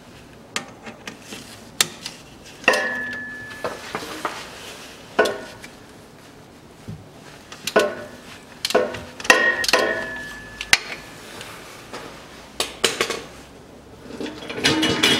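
Metal hand tools clinking and knocking as a ratchet with an 8 mm hex bit is worked on the rear differential's fill plug: a series of sharp metallic knocks and clinks, two of them ringing briefly, growing busier near the end.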